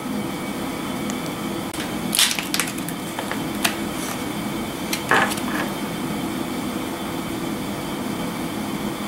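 Plastic packaging crinkling and rustling in short bursts, about two seconds in and again about five seconds in, as a small silicone mold is handled out of its bag. A steady hum runs underneath.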